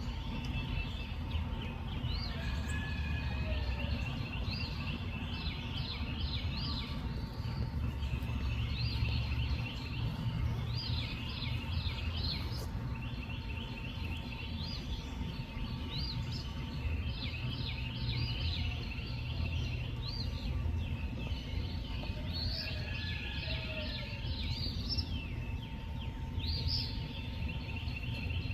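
Outdoor nature ambience: clusters of high chirping and trilling calls repeat throughout, over a low steady rumble and a faint steady hum.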